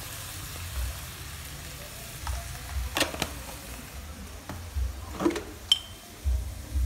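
Crab pieces with spring onion sizzling steadily in a hot pan. A few sharp clicks and knocks come about three seconds in and again around five seconds, one with a brief metallic ring.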